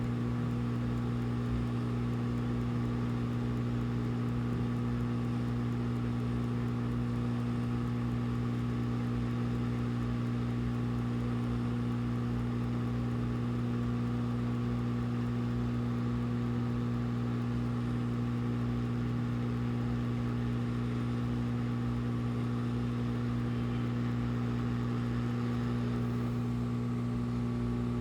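Steady low hum with a buzz, unchanging throughout.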